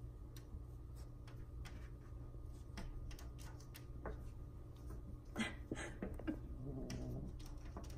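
Cats pawing and scratching at window glass: scattered light clicks and taps, with two louder knocks a little past halfway.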